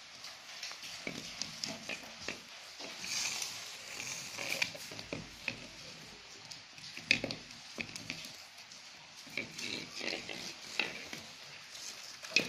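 A puppy playing with a dry, husked coconut: the coconut scraping and knocking as it is dragged and rolled across a tiled floor, with the puppy's small vocal noises mixed in. There is a sharp knock about seven seconds in and another near the end.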